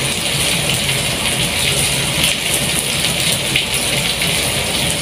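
Steady hiss with a low, even hum beneath it, unchanging throughout.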